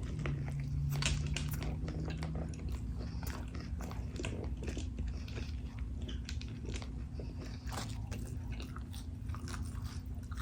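Close-miked chewing of a Big Mac, with many small mouth clicks and smacks. A low closed-mouth hum runs through the first two seconds or so.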